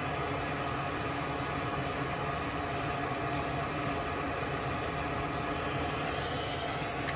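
A steady mechanical hum and hiss at an even level, with one short sharp click near the end.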